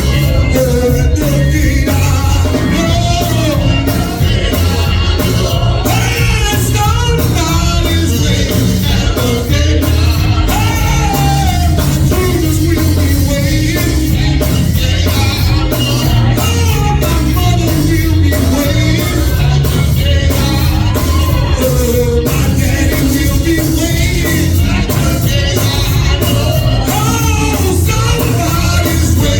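Gospel worship music: voices singing over a band with a steady beat and strong bass.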